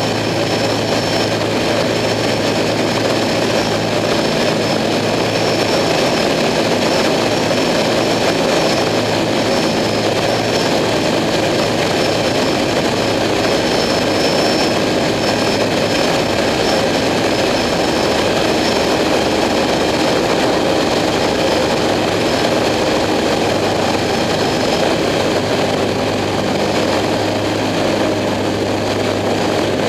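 Single-engine Sonex light aircraft in flight, its piston engine and propeller droning steadily as heard inside the cockpit.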